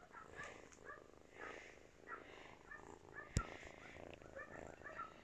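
Month-old kitten purring faintly in soft waves, about two a second. A single sharp click sounds about three seconds in.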